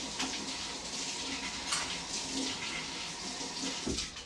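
Water running from a kitchen tap while a slicer is given a quick rinse; the water shuts off near the end.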